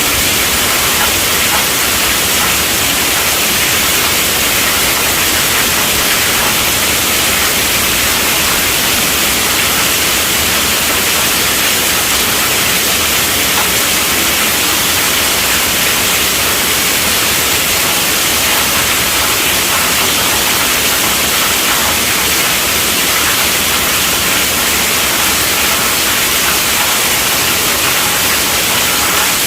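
Steady, even hiss of heavy rainfall, with no individual drops or thunder standing out.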